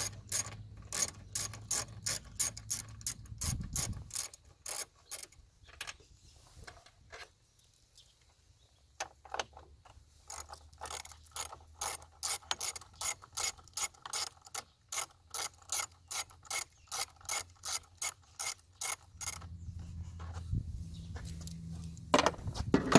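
Socket ratchet clicking in quick runs of about four clicks a second while backing out the 10 mm bolts that hold the factory air box, with a pause of a few seconds in the middle between bolts.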